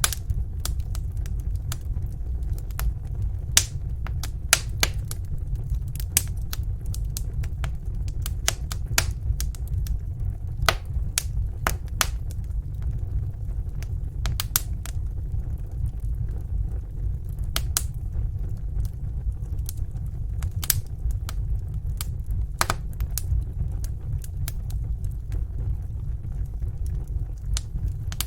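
Wood fire crackling: irregular sharp pops and snaps over a steady low rumble of the burning.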